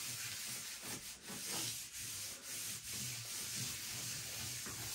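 A hand rubbing over a PVC sheet laid on a panel, in repeated sweeping strokes, pressing the sheet flat and smoothing it so it bonds without bubbles.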